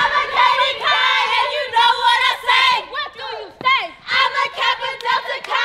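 A group of young women chanting and shouting together, a stroll-team chant with many voices at once.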